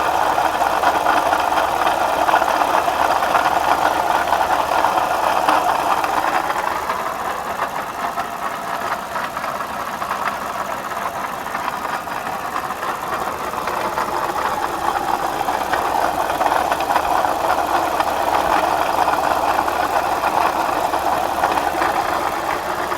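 2007 Lexus GS350's 3.5-litre V6 running with a continuous rapid rattling noise from the water pump, which the owner takes for the pump going out. The noise drops back a little for several seconds in the middle, then returns as strong.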